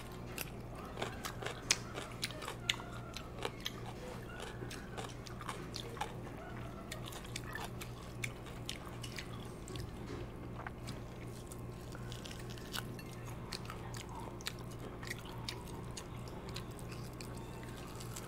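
Close-up chewing and mouth sounds of someone eating barbecued food, with many short, sharp clicks scattered throughout, over a steady low hum.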